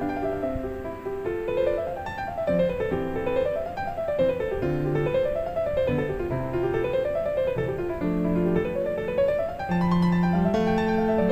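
Background piano music: repeated runs of notes climbing and falling over low bass notes.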